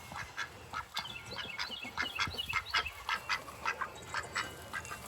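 Duck quacking in a rapid run of short, repeated calls.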